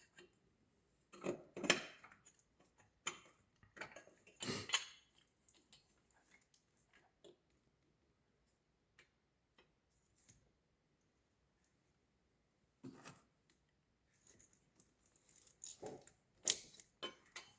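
Scattered light metallic clinks and knocks of a metal bracket and tools being handled and fitted into an engine bay, in short bunches with a quiet stretch in the middle.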